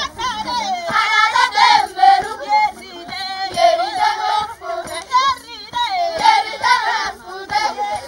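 Traditional Ethiopian Dassanech song: a group of voices singing together over sharp beats about twice a second.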